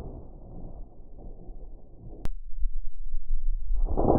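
5.56 mm rifle shots: the rumbling echo of one shot fades out, a sharp crack comes about two seconds in, and the report of a second shot comes near the end. The shots sound dull, with little high-pitched crack in them.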